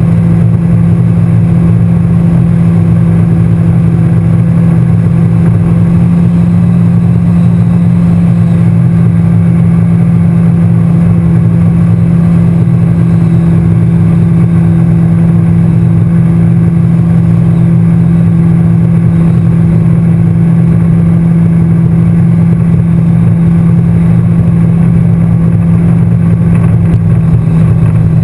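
Yamaha FX SHO personal watercraft's supercharged four-stroke engine running steadily at cruising speed, a constant drone mixed with the rush of water and spray past the hull.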